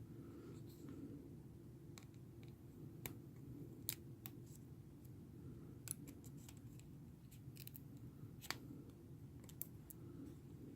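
Faint, scattered small clicks and taps of a disassembled smartphone's plastic and metal parts being handled, four of them sharper than the rest, over a steady low hum.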